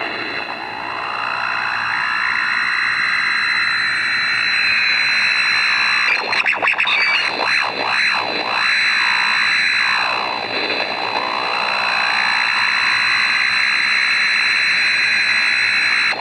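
Electrical switching noise from a MOSFET and NE555 timer pulse circuit, picked up by a Grundig G8 AM radio: a steady high whistle over a loud buzzing hiss that swoops down and back up in pitch several times, with a fast stuttering flutter about six seconds in. The noise shifts as the charge-dump capacitor charges and discharges through the neon bulb and as the underdriven 555 timer flips between operating modes.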